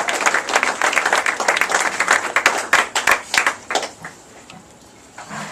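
A small audience applauding, the clapping thinning out and dying away about four seconds in.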